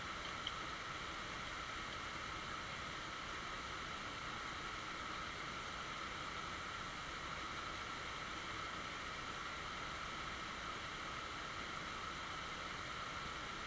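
Steady rush of a shallow creek running over rocks, an even hiss throughout, with one small tick about half a second in.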